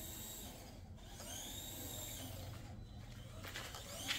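Faint electric motor whine from a Redcat MT-18 mini RC monster truck driven in short bursts: the pitch rises as it speeds up, holds, then falls away as it slows, several times with short gaps between.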